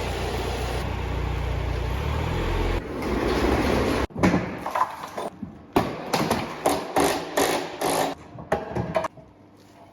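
A steady mechanical drone with a deep rumble for about three seconds, then a run of about a dozen irregular, sharp metal knocks and bangs, like hammer blows, during towbar work.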